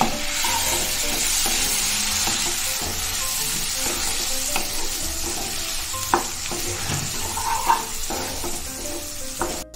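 Chopped onions and green chillies sizzling in hot oil in a nonstick kadai, stirred with a wooden spatula that scrapes and now and then knocks against the pan a few times. The sizzle cuts off suddenly just before the end.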